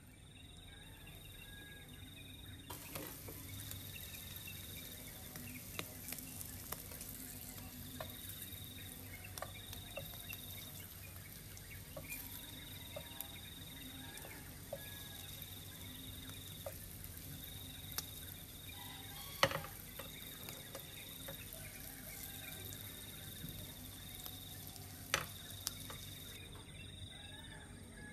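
Small fish frying in oil in a pan, a steady sizzle that comes in about three seconds in and cuts off near the end. Metal tongs click against the pan a few times, two clicks sharper than the rest. Over it, an insect calls in one high pitch, in bursts of about a second every couple of seconds.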